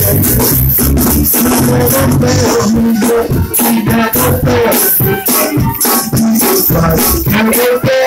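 Loud music with a steady shaker rhythm over a bass line, and a man singing into a handheld microphone over it.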